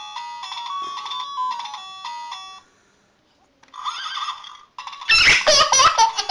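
A battery-powered baby toy plays a beeping electronic tune that stops after about two and a half seconds; after a short pause the toy makes another brief sound. Near the end a baby laughs loudly.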